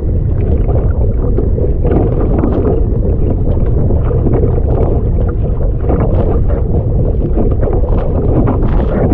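Strong storm wind buffeting the microphone with a heavy low rumble, while choppy waves slap and splash against a kayak's bow again and again.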